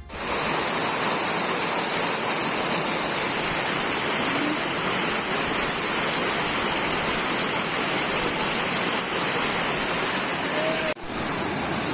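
Waterfall: a steady rush of falling water with a faint hiss on top, breaking off for an instant near the end before going on. Faint voices can be heard under it now and then.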